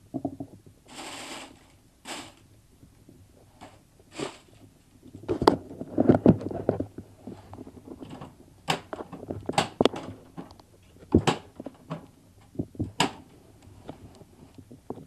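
A run of irregular knocks and clicks with a few dull thuds and a short hiss about a second in.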